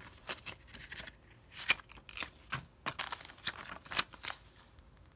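A clear plastic bag and a paper instruction card being handled in a cardboard box, rustling in a run of irregular crackles that stops about four seconds in.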